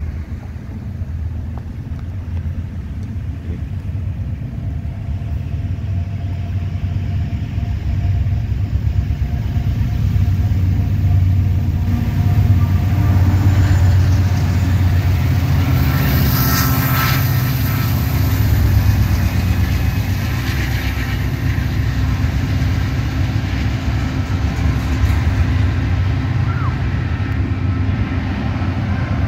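Three diesel freight locomotives passing directly below, their engines making a loud, steady low rumble that builds as they approach and is loudest around the middle, with a brief surge of noise about sixteen seconds in. The rumble carries on as double-stack container cars roll past.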